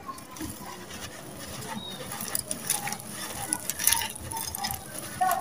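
A dry, bucket-moulded block of red dirt and sand-cement crumbling in a hand, the grit and small clumps pouring down in a dense, irregular patter of gritty crackles.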